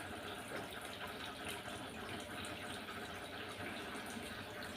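Quiet, steady background hiss with no distinct events.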